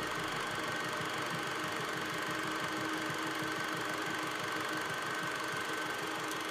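A small machine running steadily, with a fast, even clatter under a constant hum.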